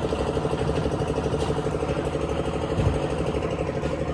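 An engine running steadily with an even, fast pulsing beat.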